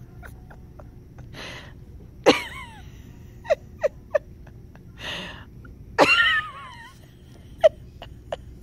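A baby making small vocal sounds: two short high squeals that fall in pitch, the second and louder one about six seconds in, with breathy huffs and a few small mouth clicks between them. A faint steady hum runs underneath.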